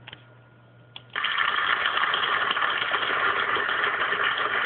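Studio audience applauding, a dense steady clatter of many hands that starts abruptly about a second in after a faint hum and a click.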